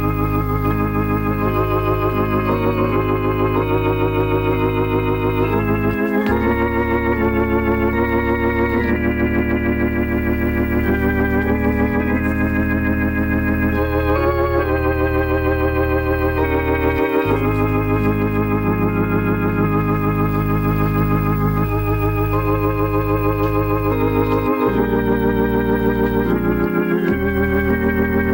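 Organ playing a slow, hymn-like closing theme: full held chords with a wavering vibrato over sustained bass notes that shift to new pitches every few seconds.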